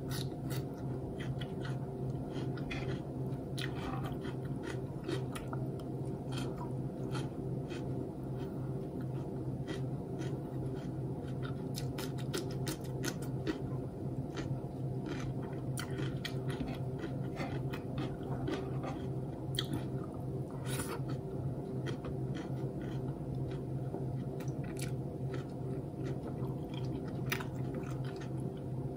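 Close-miked mukbang eating sounds: a person chewing and biting food, with frequent short wet clicks and smacks from the mouth. A steady low hum runs underneath.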